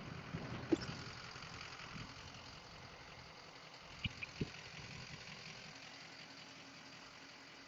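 6.0L Power Stroke V8 diesel idling faintly and steadily, fading a little toward the end, with a few light clicks about a second in and twice about four seconds in.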